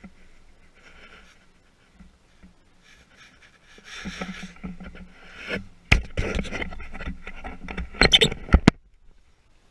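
Close handling noise as clothing and gear rub and rustle against a body-worn camera. It is soft at first and grows louder about halfway through, with a few sharp knocks and clatters about six and eight seconds in, then stops.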